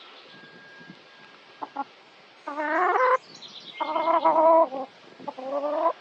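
Domestic fowl calling: a couple of short notes, then three louder, drawn-out calls with a wavering, rising pitch, each under a second long.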